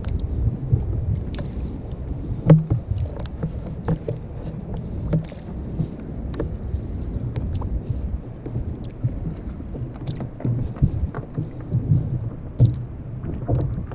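Wind rumbling on the microphone and water moving against a sit-on-top kayak's hull, with scattered light knocks and clicks. The loudest knock comes about two and a half seconds in.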